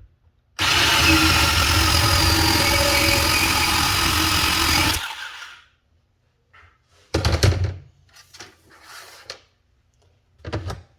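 DeWalt DCS370 18 V cordless portable bandsaw running steadily through a cut in schedule 40 pipe for about four seconds, then spooling down. A few knocks and clatters follow.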